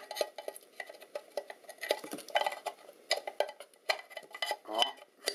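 The hard plastic case and connector boards of a Philips V8-4 ultrasound probe being pushed and worked back together by hand: a steady run of small clicks, knocks and scrapes.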